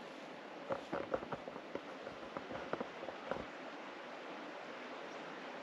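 Soft clicks and knocks of a camera being handled, a quick run of them about a second in lasting a couple of seconds, over a steady hiss of outdoor air.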